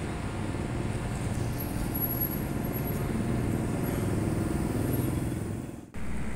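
A car's engine and tyres rumbling as it drives past, swelling about three to five seconds in. Near the end the sound breaks off abruptly for a moment.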